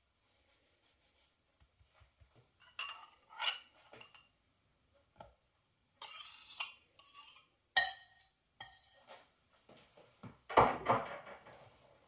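Kitchen utensil sounds: a faint rustle of flour being sifted through a wire-mesh sieve, then clinks and scrapes of metal against ceramic bowls as butter is scraped into a mixing bowl. The loudest knock comes near the end.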